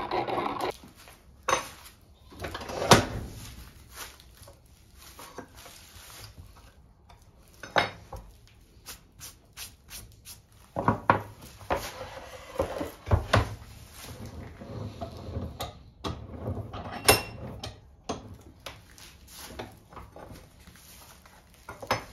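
A sharpening wheel's rubbing noise stops within the first second. Then come scattered knocks, clunks and clicks as a wooden board carrying steel diamond sharpening plates and a plane iron are handled and set down on a wooden workbench.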